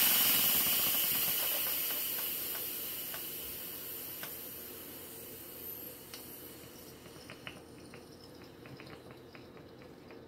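Instant Pot steam release valve hissing as the remaining pressure is quick-released after a natural release, starting loud and fading steadily over about seven seconds. A few faint ticks follow near the end.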